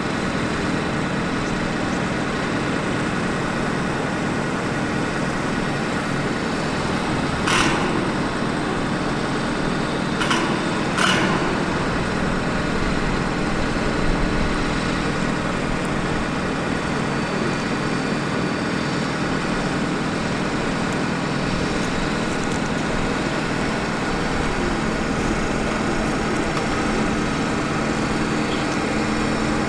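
A Ford F450's 6.4L Power Stroke diesel idles steadily while running the bucket truck's hydraulic boom. Three short sharp knocks come between about seven and eleven seconds in.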